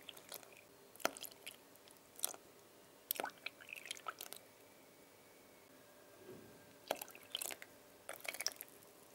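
Milk poured into flour in a stainless-steel mixing bowl for pancake batter: soft wet pouring with scattered light clicks and taps of the jug and utensil against the metal bowl, coming in small clusters.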